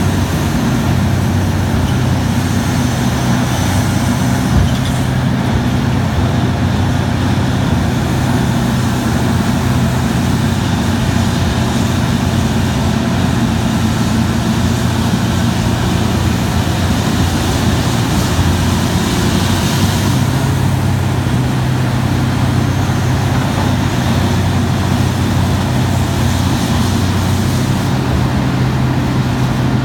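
Heavy diesel engines of a Terex RH170 mining front shovel, with a Hitachi EH3500 haul truck alongside, running in a steady low drone as the shovel digs and swings. Past the middle, a hissing rattle of rock pouring from the bucket into the truck bed rides over the engine drone.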